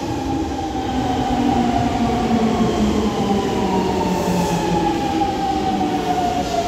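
Nankai 1000 series electric train's VVVF inverter whine as it pulls into the platform: several tones falling slowly in pitch as the train brakes, over the rumble of the wheels.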